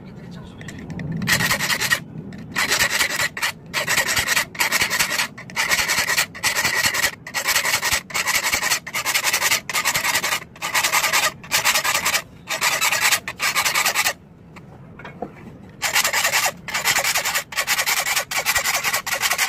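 Metal file rasping across the steel teeth of a hand saw clamped in a vise, sharpening them in even strokes a little over one a second. The strokes stop for about two seconds some two-thirds of the way through, then start again.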